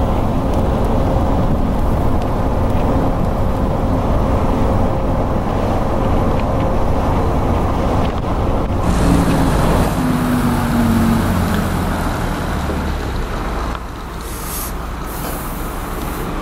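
Inside a highway bus cruising on an expressway: a steady rumble of engine and road noise, with an engine note that falls about ten seconds in. Near the end the sound cuts to quieter outdoor traffic noise with short hisses.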